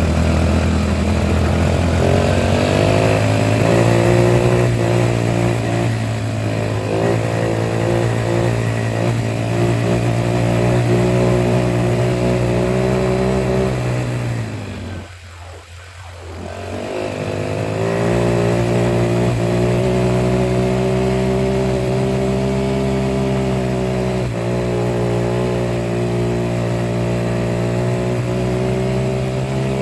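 Vehicle engine running at a steady pitch. It dies away for a moment about halfway through, then picks up again and runs on steadily.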